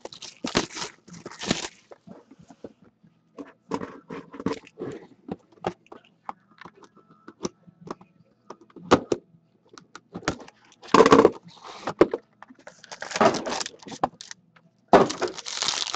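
Hands opening a sealed hockey card box of Panini Prime and lifting out a foil-wrapped card pack: crinkling of wrapping with scattered rustles, taps and clicks. The crinkling is loudest in short bursts in the first two seconds and again about eleven and thirteen seconds in.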